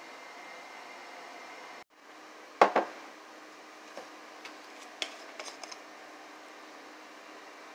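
A drinking glass set down on a stone countertop with two sharp clacks close together, followed by a few light clicks and taps.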